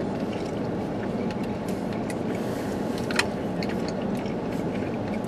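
Steady low rumble inside a parked car, its engine or ventilation running, with a few small handling clicks and one sharper click about three seconds in.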